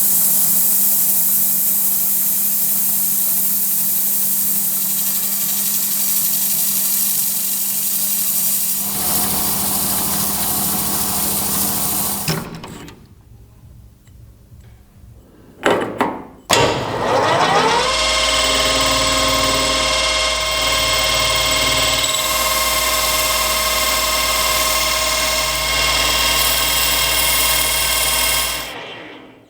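Electric power tool running steadily for about twelve seconds, then stopping. After a short lull its motor spins up again with a rising whine and runs steadily until it stops near the end.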